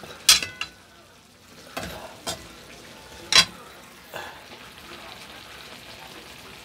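A metal ladle stirring chicken adobo in a wok, clinking sharply against the pan about five times, the loudest strikes near the start and a little past three seconds in. Under it the sauce bubbles with a steady sizzle.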